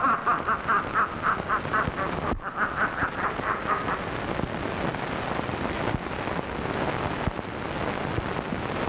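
A man's loud laugh in quick, even "ha-ha" pulses, about five a second, in two runs with a short break between, stopping about four seconds in. After it there is only an even hiss.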